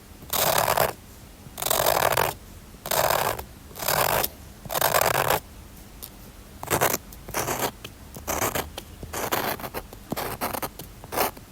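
A drawing tool scratching across paper. Long strokes come about once a second for the first half, then shorter, quicker strokes.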